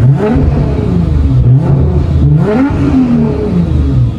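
Heavily tuned, roughly 1,800-horsepower Nissan GT-R engine being revved several times. Its pitch climbs and drops with each rev, and the longest rev peaks about two and a half seconds in.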